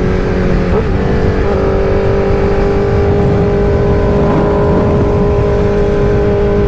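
Motorcycle engine running at a steady pitch while riding, over a constant low wind rumble; the engine note shifts up briefly about a second and a half in, then holds steady.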